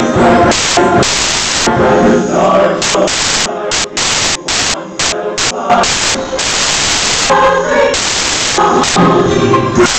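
Glitched, corrupted digital audio: fragments of music chopped up and interleaved with bursts of loud static hiss. They switch on and off abruptly, stuttering fastest around the middle.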